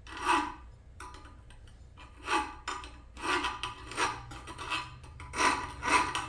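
Hand file rasping on a steel blade held in a vise, taking a burr off its edge: about six or seven separate strokes, with a pause of over a second after the first.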